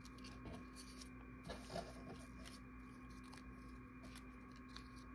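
Near silence: a steady faint electrical hum of room tone, with soft rustling of a paper scrap being handled and one slightly louder brief rustle a little under two seconds in.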